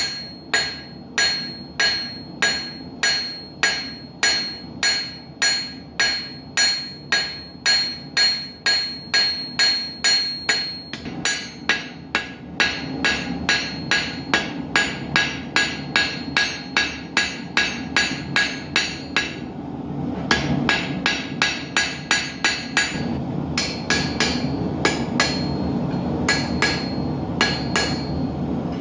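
Hand hammer striking hot steel on an anvil while forging arrowheads: a steady run of blows about two a second, the early ones with a bright ringing tone. The blows quicken slightly partway through and break off briefly about two-thirds in, over a steady low rushing noise.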